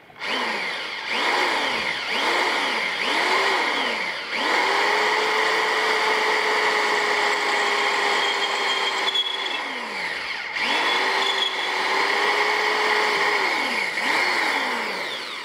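Cordless drill boring through the thin steel blade of a kitchen hatchet clamped in a vise: about four short bursts, each speeding up and winding down, then two longer steady runs with a short stop between. The bit cuts easily, which the owner takes as a sign that the steel is not stainless.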